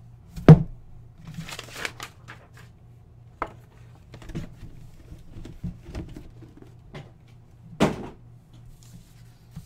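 Handling noise from a cardboard box and a paper sign being moved and set down on a table. There is a sharp thump about half a second in, then rustling and light taps, and another thump near the end, over a faint steady low hum.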